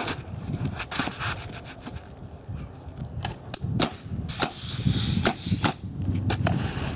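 Sharp knocks and clacks of hand tools on the roof, several hits spread over the second half, with a short burst of hiss about four and a half seconds in.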